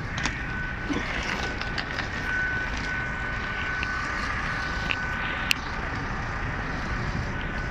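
Footsteps and luggage moving along a station platform as passengers walk to board a train, with scattered sharp clicks over a steady low rumble. A thin steady high tone runs through the first five seconds or so, then stops.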